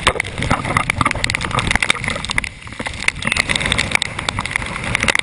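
Tornado wind buffeting the microphone: a loud, dense rumble broken by many sharp clicks and knocks, easing briefly about halfway through.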